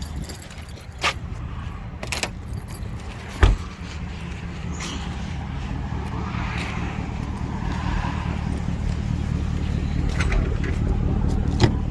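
A car running with a steady low rumble that slowly grows louder, as when pulling away. There are a few sharp clicks or knocks in the first few seconds, the loudest about three and a half seconds in.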